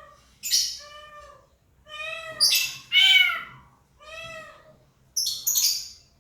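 A bird calling with a series of short, arched, cat-like mews, roughly one a second, broken by harsh hissing screeches. The loudest screeches come about halfway through and near the end.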